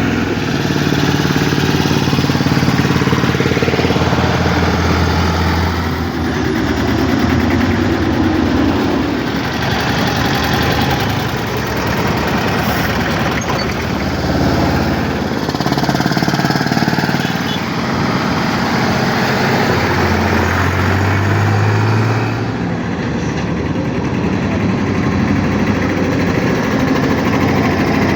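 Engine of a vintage farm vehicle running continuously while driving, its low note rising and falling with changes in engine speed.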